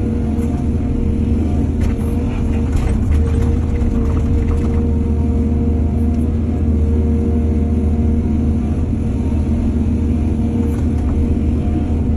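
Heavy diesel machinery engine running steadily under load, with a cluster of brief clatters about two to five seconds in.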